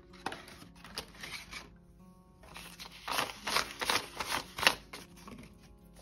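Paper banknotes and cash envelopes from a budget binder being handled and rustled, in two stretches, the second louder, with a sharp crisp snap near its end. Soft background music underneath.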